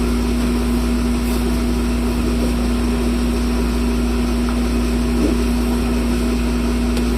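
A steady mechanical hum with one constant pitch, running evenly without change.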